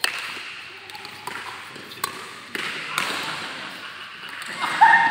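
Sharp, echoing racket hits of a doubles rally, about five strokes half a second to a second apart, over background voices; near the end a held high-pitched tone sounds.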